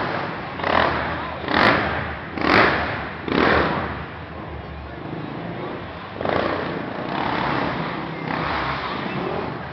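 Racing quad (ATV) engine revving and backing off, surging about once a second for several seconds, then held in a longer steadier run near the end.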